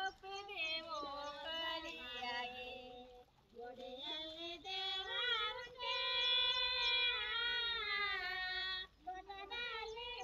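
A woman's voice singing a rice-planting folk song unaccompanied, with long held, wavering notes and brief breaks for breath about three and nine seconds in.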